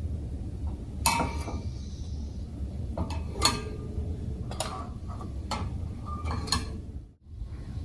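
Dishes and utensils being handled: a handful of separate sharp clinks, each ringing briefly, spaced a second or so apart over a steady low hum.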